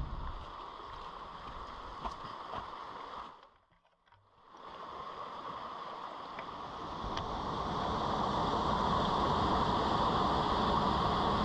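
Running water: a stream rushing over rocks, dropping out briefly about four seconds in, then a waterfall's steady rush that swells and stays loud through the second half.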